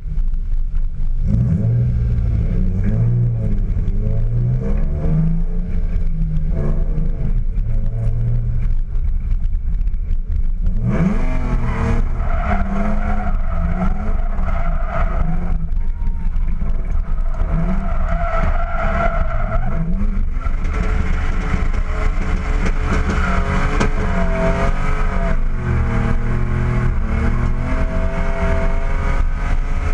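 Car engine revving hard, rising and falling, as the car spins its tyres through donuts. From about a third of the way in, loud wavering tyre squeal joins it and holds, with tyre smoke pouring off.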